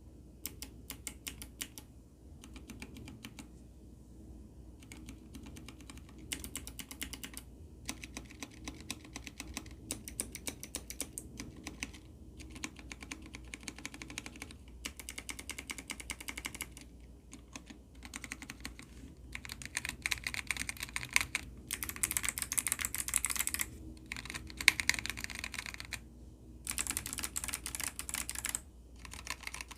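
Fast typing on an ABKO ADK05 mechanical keyboard fitted with Kailh Box White (clicky) and Kailh Box Red (linear) switches, in bursts of rapid keystrokes with short pauses between them. Some bursts, in the second half, are louder and crisper than others.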